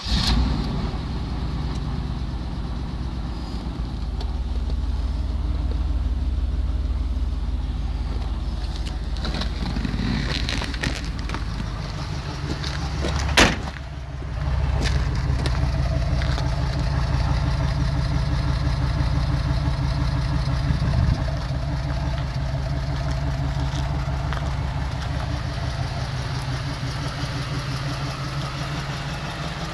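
1990 Cadillac Allante's 4.5-litre V8 idling steadily, with one sharp click about halfway through.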